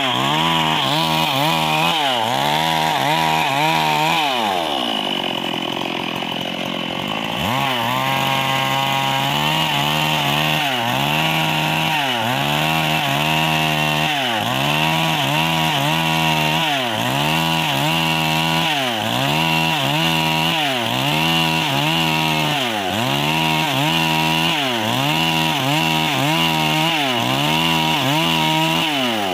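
Stihl MS 382 two-stroke chainsaw at full throttle ripping a plank lengthwise along the grain, its engine speed dipping under load and picking up again about once a second. About four seconds in it slows for a few seconds, then revs back up.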